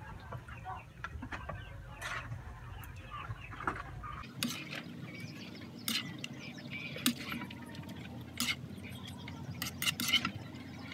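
Metal ladle scraping and clinking against a cooking pan as cooked food is scooped out into a bowl, in irregular separate knocks and scrapes.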